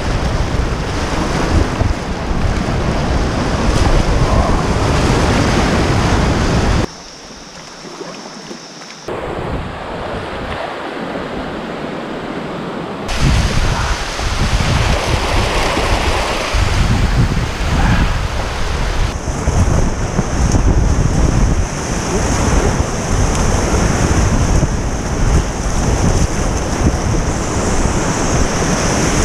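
Rushing whitewater of river rapids with wind buffeting the microphone. About seven seconds in the roar drops suddenly to quieter running water for several seconds, then the loud rapids return.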